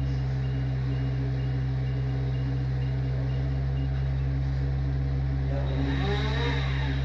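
Heavy engine running steadily, with a high beep repeating about twice a second for the first half, then a motor revving up and falling back twice near the end.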